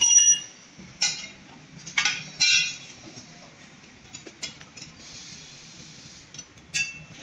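Several sharp metallic clinks, the first with a brief ring, over quieter handling clatter as metal bike parts and tools are handled during assembly.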